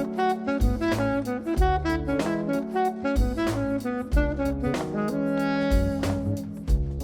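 Instrumental background music with a steady drum beat, bass and a melody line.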